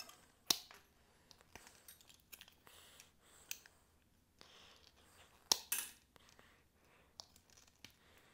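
Wire strippers cutting and stripping insulated copper wire: a series of sharp snips and clicks, the loudest about half a second in and a pair near five and a half seconds, with faint rustling of the wires between.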